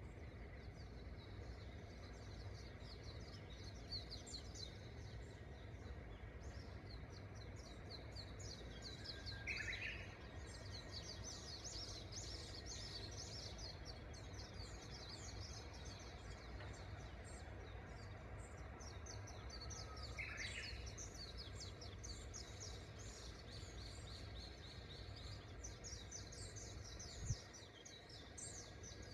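Japanese bush warbler (uguisu) singing twice, about ten seconds apart: a short held whistle breaking into a quick higher flourish. Continuous high chirping of other small birds and a low steady rumble run underneath, and the rumble stops with a click near the end.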